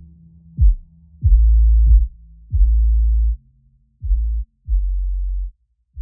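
Background electronic music made of deep, muffled bass notes that stop and start, struck through with short kick-drum hits that drop in pitch. It gets quieter in the second half.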